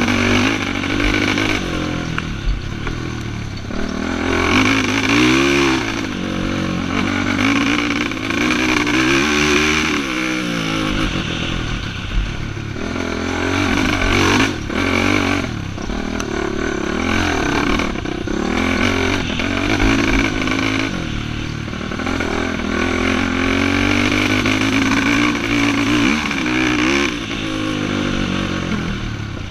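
ATV engine being raced, revving up and falling back over and over, its pitch sweeping up and down every few seconds. A few sharp knocks come about halfway through.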